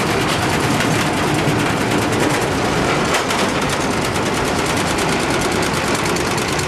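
Green tea processing machinery running: a steady, rapid mechanical clatter from the leaf-crushing machine and its shaking conveyor.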